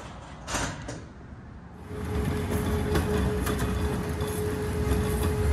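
Hand pallet jack rolling a heavy crated load over concrete, its wheels a steady low rumble starting about two seconds in, with a steady hum alongside.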